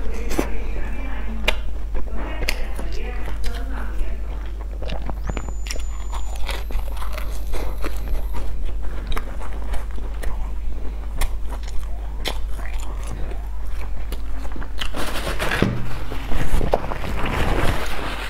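Close-miked chewing and wet mouth sounds of soft bread being eaten, with small clicks and crackles throughout. Near the end there is a louder crackling rustle as a large bread loaf is handled.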